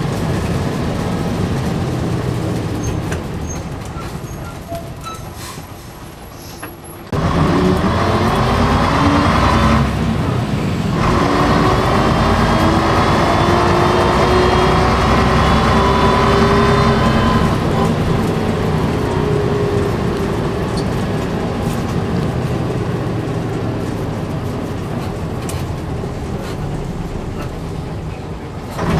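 Diesel engine of a preserved AEC double-decker bus, heard from inside the lower saloon. It runs quieter for a few seconds, then about seven seconds in it opens up loudly as the bus pulls away. The engine note climbs, breaks briefly for a gear change and climbs again, then settles and eases off as the bus runs on.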